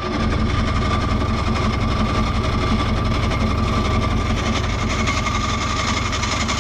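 Camping car's engine idling, a steady fast-pulsing exhaust noise with a thin whine through it. It is the sign of a failing exhaust, which the owner traces to something come loose between the engine and the exhaust.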